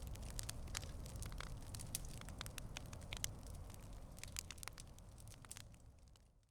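Fire crackling with scattered sharp pops over a low steady rumble, fading out near the end.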